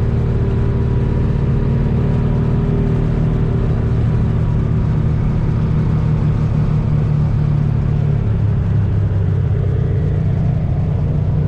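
Side-by-side UTV engine running steadily while driving, a continuous low drone that rises and falls slightly in pitch.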